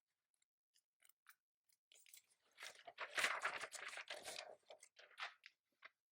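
Computer keyboard typing: a few scattered keystrokes, then a quick run of rapid typing in the middle, trailing off into single keys near the end.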